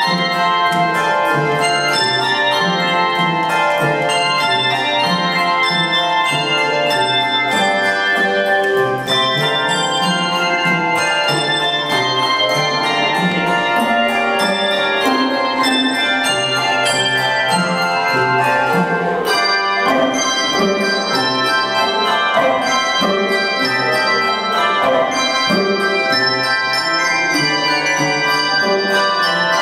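A handbell choir playing a piece: many handbells ringing a melody over held chords, the notes changing steadily.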